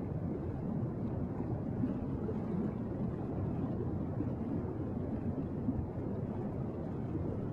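Steady low rumble of water noise with no distinct events.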